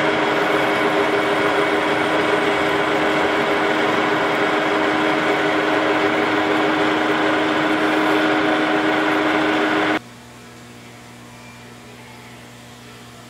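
Metal lathe running steadily while a rifle barrel's chamber is cut under a flood of cutting oil, a loud machine whine with several constant tones. It cuts off suddenly about ten seconds in, leaving a much quieter low hum.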